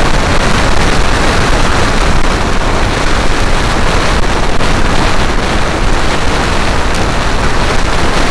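Loud, steady wind noise buffeting the microphone of a camera on a moving scooter, a rushing roar that covers any engine or road sound.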